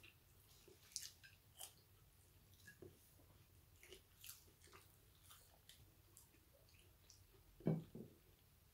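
Quiet close-miked chewing and lip smacking of a person eating chips: scattered soft wet clicks and smacks, with one louder dull thump near the end.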